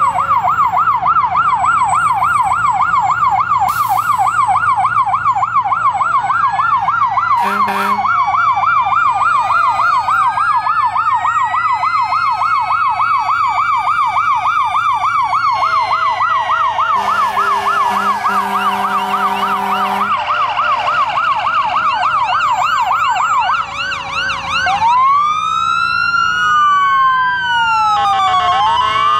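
Several fire truck sirens sounding at once: a fast yelp, with slower wails rising and falling over it. A horn blasts briefly about eight seconds in and again, in short blasts, for several seconds from about sixteen seconds in. Near the end the fast yelp stops and slow sweeping wails take over.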